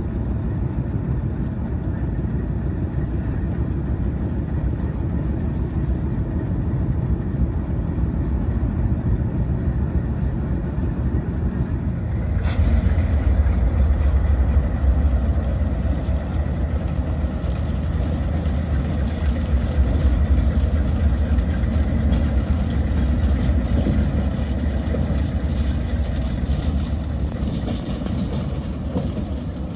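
Diesel locomotive engine running with a steady low rumble. About twelve seconds in there is a sharp click, after which the low rumble grows heavier.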